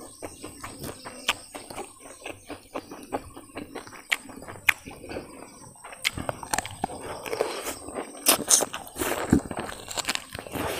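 Close-miked eating by hand: fingers working through garlic fried rice and meat, then chewing a full mouthful with many wet clicks and crackles, densest in the last few seconds.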